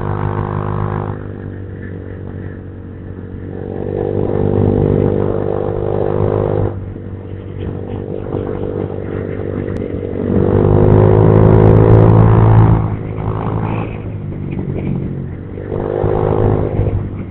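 Honda Vario 150 scooter's single-cylinder engine running through a cheap replica aftermarket exhaust, with the throttle opened in three surges, at about 4 seconds, 10 seconds and 16 seconds. The surge around 10–13 seconds is the loudest, and the engine eases back between the surges.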